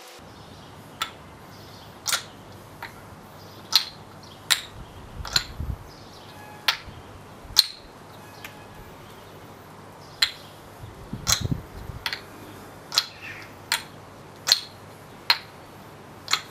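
Wooden ball of a maple Sweets Homegrown kendama clacking onto the cups and spike, one sharp click about every second during tricks. There is a quick run of clicks about eleven seconds in.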